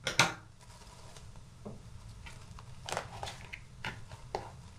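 Plastic cling film crinkling as it is stretched and pressed over the rim of a plastic bowl: a sharp crackle just after the start, then a few short, scattered crinkles.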